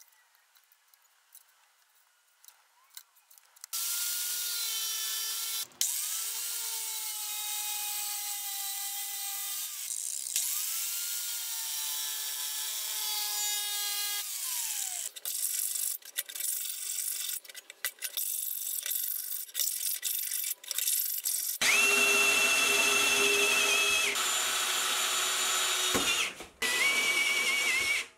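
Angle grinder with a cutting disc cutting galvanised steel sheet in three long passes, its whine dipping and recovering under load. Near the end a drill runs in short bursts at a higher pitch on the sheet metal.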